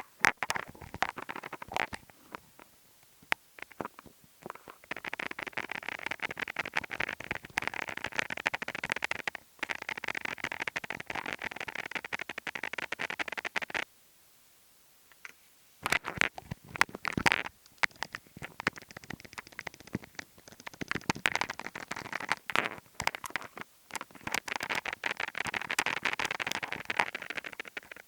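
Close-up ASMR tapping and scratching by fingertips near the microphone: scattered single taps, then long runs of quick, dense tapping, broken by a pause of about two seconds midway and a few sharper taps before the tapping resumes.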